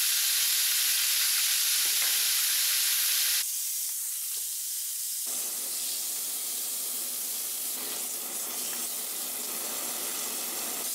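Raw leg of lamb sizzling in hot oil in a large frying pan, seared on high heat to brown only its surface. A steady sizzle, loudest at first, drops abruptly about a third of the way in and carries on a little quieter.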